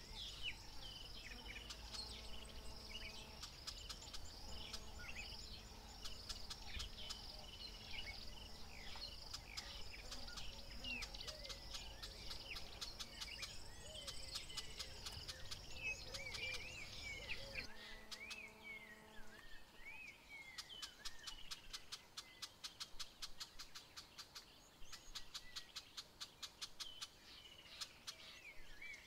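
Wild birds chirping and calling with many quick sweeping notes over a steady high insect trill. A low rumble underneath stops suddenly about two-thirds of the way through, and then a fast train of clicks runs on.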